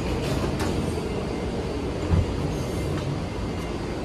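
Taoyuan Airport MRT four-car electric commuter train pulling out of the station past the platform screen doors: a steady low rumble of motors and wheels with a few faint clicks. A brief low thump comes about two seconds in.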